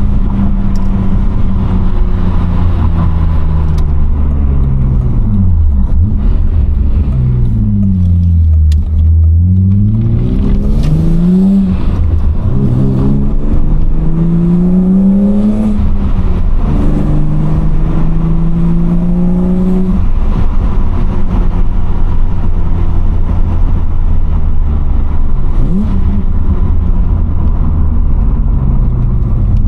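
BMW E36 325i's M50B25 straight-six through a Supersprint race exhaust, heard from the cabin with the window down. The engine note drops low as the car slows, then climbs twice with a gear change between, and settles into a steady cruise with road and wind noise.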